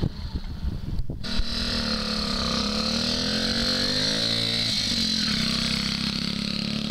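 Small two-stroke moped engine running as the moped rides past, a buzzing engine note with a high whine over it; the revs rise and fall once about four seconds in. Before that, a second of rumbling noise on the microphone.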